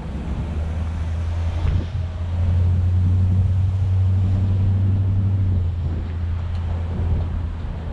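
Pickup truck driving while towing a loaded trailer: a low, steady engine and road drone that swells for a few seconds in the middle, with one knock a little under two seconds in.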